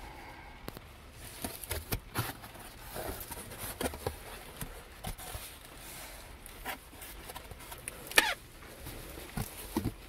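A cardboard box of wrapped quarter rolls being opened by hand: scattered scrapes, rustles and clicks of the cardboard flaps and the rolls inside, with one sharper click about eight seconds in.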